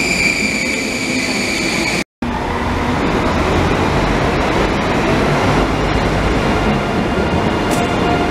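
An ICE high-speed train moves past close by with a steady high whine, which cuts off suddenly about two seconds in. After that, an ICE 3 train rolls slowly along the platform with a steady rumble of wheels and running gear, and faint steady hum tones.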